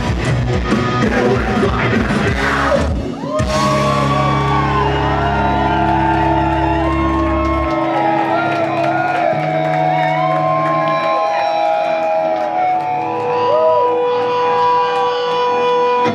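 Live punk band in a hall playing the last bars of a song: the drums and guitars drive hard, then hit a final stop about three seconds in. The chord and bass note ring out, the bass dropping away about halfway, and the guitar keeps ringing and feeding back while the crowd shouts and whoops.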